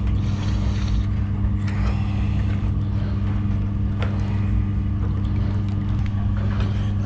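Washing machine drain pump motor humming steadily, with a couple of faint clicks.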